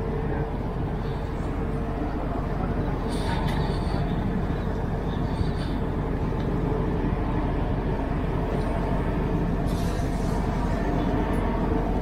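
Steady low rumble and hum of a large tanker ship's engines as it passes close by.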